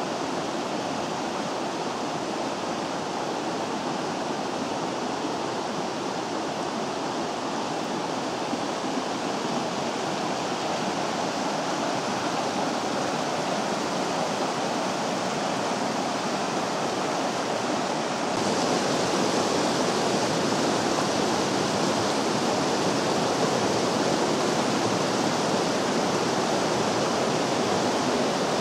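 The Vydra river rushing over rocks: a steady wash of water noise with no break. About two-thirds of the way through it steps up suddenly, louder and brighter.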